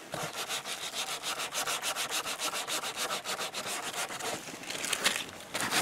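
Sandpaper rubbed by hand in quick, even back-and-forth strokes over the Hypalon fabric of an inflatable boat tube, scuffing the surface so the glue will bond. The strokes soften briefly about three-quarters of the way through.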